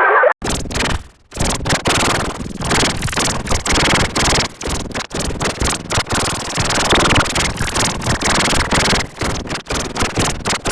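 Heavily distorted digital audio effect applied to a children's jingle. The result is a harsh wall of noise with no clear tune, chopped by frequent short dropouts, including a longer gap about a second in.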